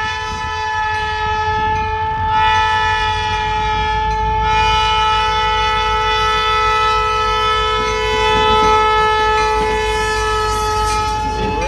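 Freight locomotive's air horn sounding one long, steady blast for the road crossing, with two brief breaks early on, over the low rumble of the diesel locomotives as they near and reach the crossing.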